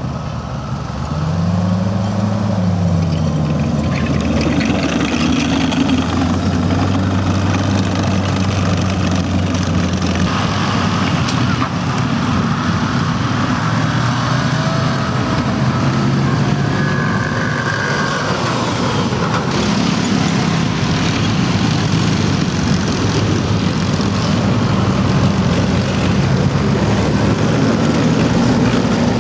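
Studebaker M29 Weasel's six-cylinder engine driving the tracked vehicle across a field: it revs up and back down about two seconds in, then runs steadily under way.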